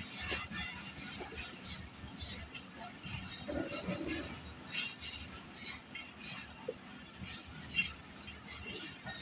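Pakistan Railways passenger coaches rolling past close by: a low steady rumble with irregular sharp metallic clinks and clicks from the wheels and running gear on the rails.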